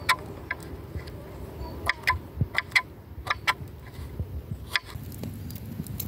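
Small paring knife chopping soft vegetable cubes on a wooden cutting board: about ten sharp, irregular taps as the blade hits the board, over a steady low outdoor rumble.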